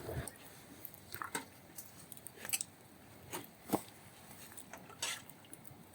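Faint crunches and clicks from people eating crisp, toasted tlayudas, about six short sounds scattered over several seconds.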